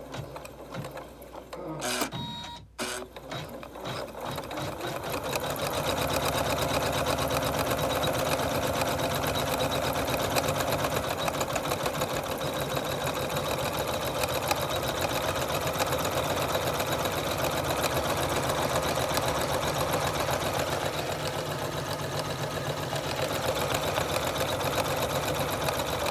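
Janome Memory Craft 9850 embroidery machine stitching out an embroidered letter with rapid, even needle strokes. It runs quieter and unevenly in the first few seconds, briefly cutting out, then stitches steadily from about five seconds in. The machine is working properly.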